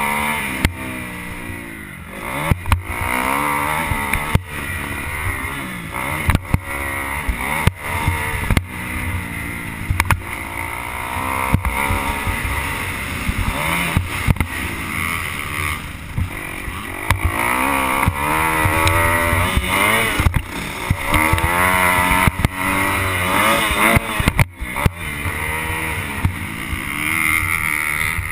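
Motocross bike's engine revving hard and falling back again and again as it is ridden around a dirt track, heard from a helmet camera, with many sharp knocks mixed in.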